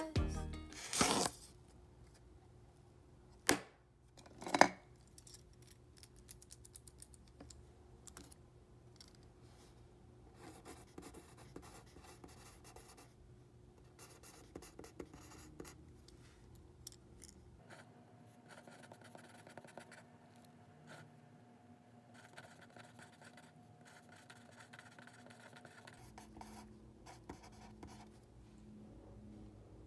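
Mechanical pencil writing on a notepad page, faint irregular scratching strokes. In the first five seconds, a page is turned and there are a few loud sharp knocks.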